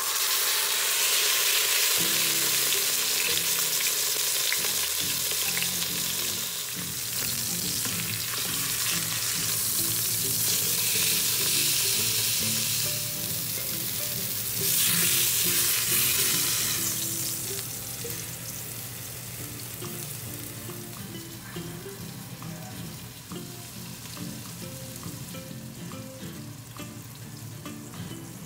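Turkey thighs sizzling as they sear in oil in the hot stainless inner pot of an Instant Pot. The sizzle is loudest through the first half, swells briefly about fifteen seconds in, then settles to a quieter fry.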